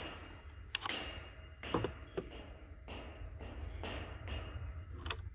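A few scattered sharp clicks and knocks from handling a jammed Mossberg 715T .22 rifle, which has a cartridge stuck sideways in its action, over a steady low rumble.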